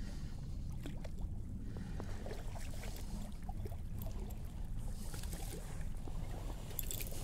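Steady low rumble of shoreline ambience on the microphone, with a few faint clicks.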